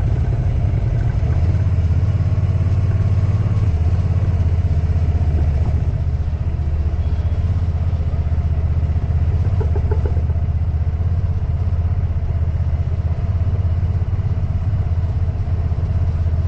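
Steady low wind rumble buffeting the microphone of a camera on a moving bicycle.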